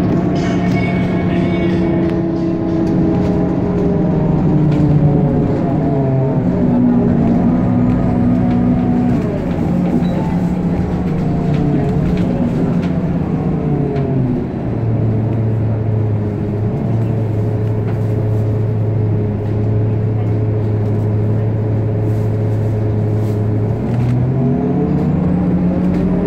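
Engine and drivetrain hum of a road vehicle heard from inside the cabin while riding. The tone drops about halfway through as the vehicle slows, holds low and steady for several seconds, then climbs again near the end as it pulls away.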